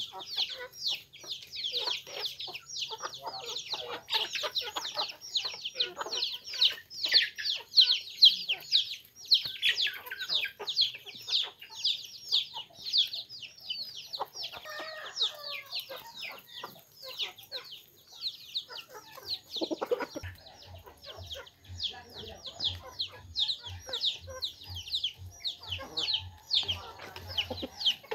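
Chicks peeping rapidly and without a break, with hens clucking and beaks tapping as the flock pecks grain off hard ground.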